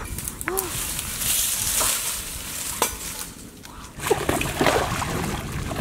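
Shallow muddy water splashing and sloshing as a person wades and sweeps a hand push net through it, louder from about two-thirds of the way in. Before that, a hiss of rustling with a few light knocks.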